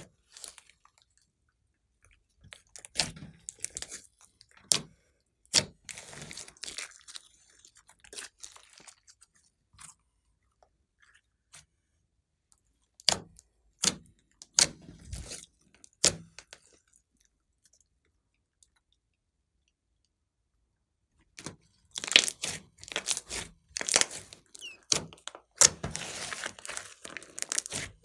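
Glossy slime mixed with clay being squeezed and kneaded by hand: wet squelching with sharp pops as trapped air pockets burst. The sounds come in scattered bursts, go quiet for a few seconds past the middle, then turn into a dense run of pops and crackle near the end.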